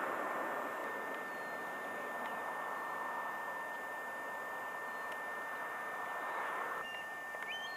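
Steady rushing outdoor noise on the camcorder microphone, with a faint constant high whine over it. The noise drops away abruptly about seven seconds in, and a few short high chirps follow.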